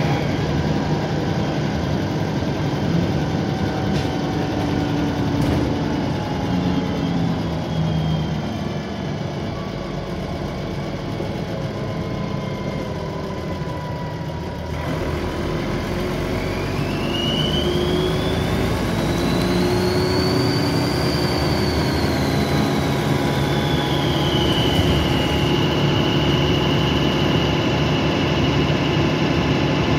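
Dennis Trident 2 double-decker bus engine heard on board, running low and easing off, then pulling away about fifteen seconds in. As it pulls away a loud, high turbocharger whine rises, peaks, falls back, and holds steady near the end; this loud whine is a known quirk of this particular bus.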